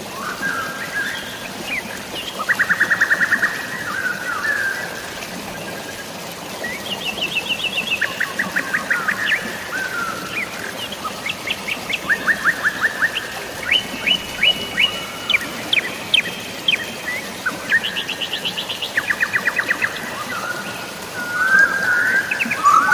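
Songbirds singing a string of fast trills and short chirps, one phrase after another, over a steady hiss of drizzling rain and running water.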